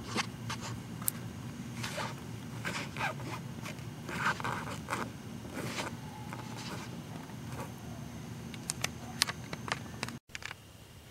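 Hands working a car door speaker's mounting screw and frame: scattered clicks, scrapes and short rasps over a steady low hum.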